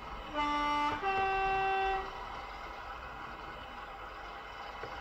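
Two-tone horn of a Bachmann class 117 DMU model, from its Howes sound decoder: a short lower note, then a longer higher note lasting about a second.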